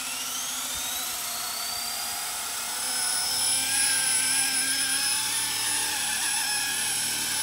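Align T-Rex 500X electric RC helicopter spooling up: the motor and rotor whine rises in pitch over the first couple of seconds, then holds steady. It gets louder about three seconds in as the helicopter lifts off into a hover.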